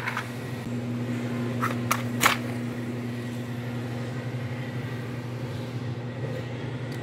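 Steady low mechanical hum, with three short scratchy strikes about two seconds in: a match being struck to light paper under charcoal.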